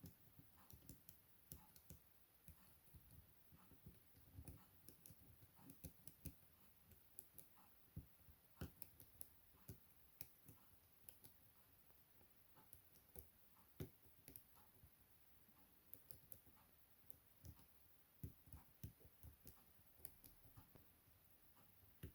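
Faint, irregular little clicks and taps of a lock pick and tension tool working the pins inside a six-pin Chubb M3 lock.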